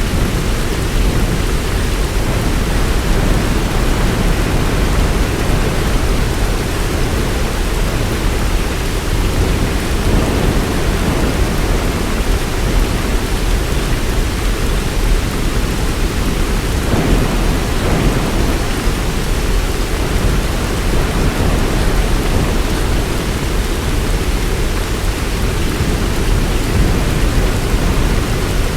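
Heavy rain falling steadily, a dense, even hiss over a deep low rumble.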